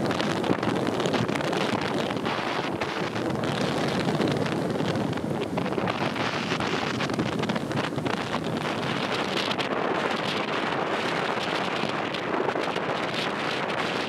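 Wind buffeting the microphone in steady gusts, over the rush of water past the hull of a sailing catamaran moving fast through choppy sea.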